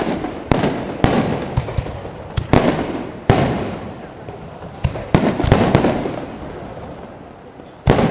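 Aerial firework shells bursting in an irregular series of about nine loud bangs, several close together, each trailing off in an echoing rumble and crackle.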